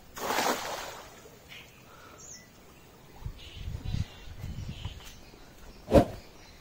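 Cast net splashing down onto river water: a brief rushing splash lasting about a second. Afterwards low rumbling handling thuds, and one sharp knock near the end.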